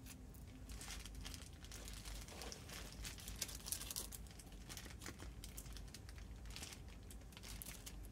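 Clear plastic bags crinkling as they are handled and packed into a padded carrying case, with a couple of sharp taps about three and a half seconds in.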